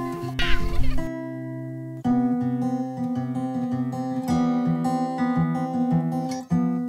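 Acoustic guitar music, plucked notes picked out over held chords. In the first second a short burst of noise cuts in and stops, and the guitar goes on alone.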